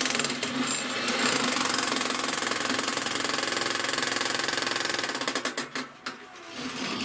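Jackhammer attachment on a homemade electric power shovel hammering in a rapid, steady rhythm. It breaks off about five and a half seconds in and starts again just before the end.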